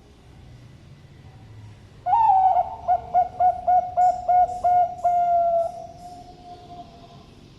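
Zebra dove (perkutut) cooing one full song: an opening note, a quick run of about eight rolling beats, then a long drawn-out final note that fades away.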